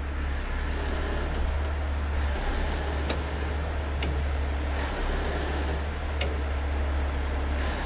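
Heavy rotator tow truck's diesel engine running steadily at working revs, driving the boom hydraulics as the boom is moved in. A few sharp clicks are heard in the middle.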